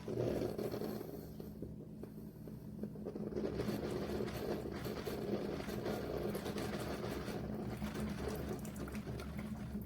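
Instant Solo single-serve pod coffee maker brewing: a steady mechanical buzz with hot water streaming into the cup, growing stronger about three and a half seconds in.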